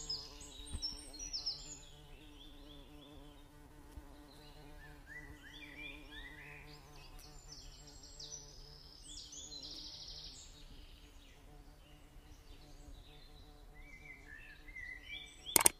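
Faint high chirping and twittering sounds, many short calls, over a low steady hum, with a sharp click just before the end.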